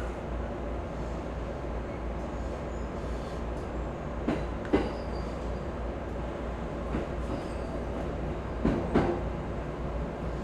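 E217 series electric multiple unit running on the line, a steady rumble and hum of wheels on rail. Two pairs of sharp clicks, about four seconds and nine seconds in, as the wheels cross rail joints.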